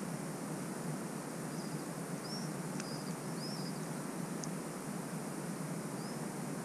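Steady outdoor background noise, with a small bird chirping faintly a few short calls about one and a half to three and a half seconds in and once more near the end.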